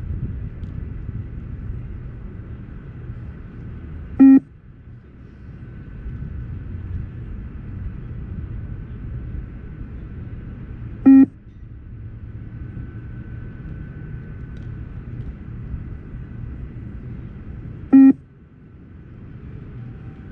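Beep test (multi-stage fitness test) recording sounding three short beeps, about seven seconds apart, the shuttle pace of level 5, over a steady low rumble.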